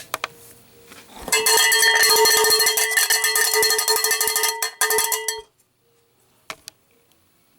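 A cowbell struck in a fast roll of rapid hits for about four seconds, starting about a second in and cutting off abruptly.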